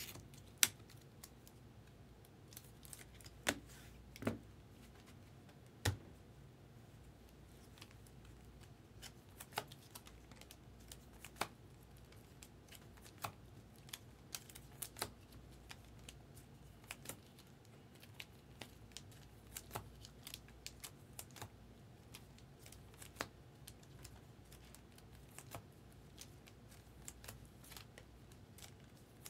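Topps Chrome baseball cards being handled and sorted by hand: scattered light clicks and taps as the cards are squared and laid down, with a few sharper taps in the first six seconds. A faint steady hum runs beneath.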